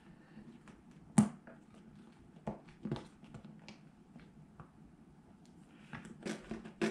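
Hands working a small nut into a mounting hole in a fabric motorcycle bag: scattered small clicks and taps, the sharpest about a second in and several more near the end.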